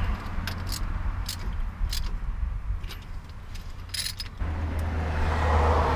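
Scattered light metallic clicks and clinks of hand work on a freshly installed Dana 60 front-axle spindle and its bolts. Under them is a steady low rumble that swells from about two-thirds of the way in.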